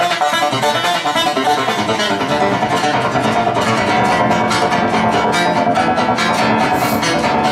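Solo acoustic-electric guitar playing an instrumental passage of quick picked notes, the attacks growing crisper and more evenly spaced about halfway through.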